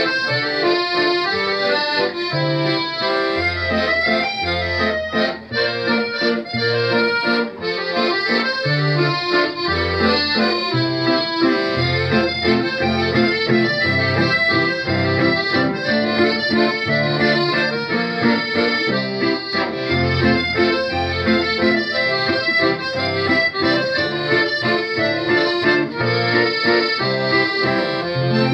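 Live acoustic band music: sustained melody notes over low bass notes that change every second or so, running without a break.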